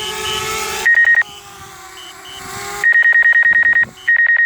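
DJI Spark flight app's low-battery alarm: a rapid, loud high-pitched beeping. A short burst comes about a second in, and a longer run starts about three seconds in, with one brief break. Under it the drone's propellers hum as it comes in to land, signalling a critically low battery and an automatic return home.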